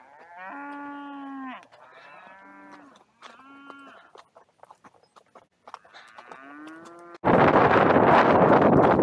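Cattle mooing: four calls, the first the longest and the last rising in pitch. About seven seconds in, loud wind buffeting on the microphone cuts in suddenly and drowns everything else.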